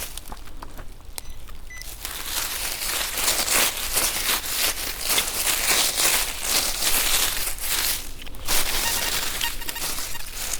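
Crackling and rustling of dry forest-floor litter close to the microphone, many small crunches in quick succession, with a few faint short beeps near the end.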